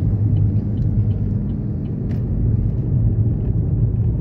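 Steady low rumble of a car driving on a highway, heard from inside the cabin: engine hum and road noise.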